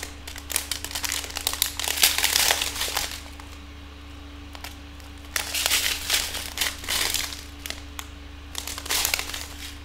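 Strip of small clear plastic bags of diamond-painting drills handled and flexed, the plastic crinkling in irregular bursts, with a quiet pause of about two seconds in the middle.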